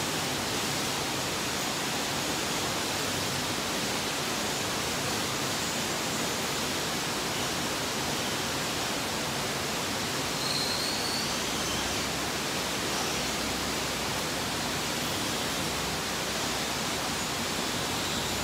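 Steady, even rushing noise, with one brief faint chirp about ten seconds in.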